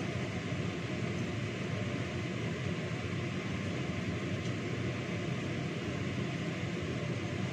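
Kitchen range hood fan running with a steady whoosh and low hum.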